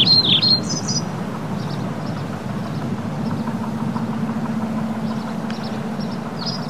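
Birds chirping, with sharp calls in the first second and again near the end and faint chirps in between, over a steady low rumble.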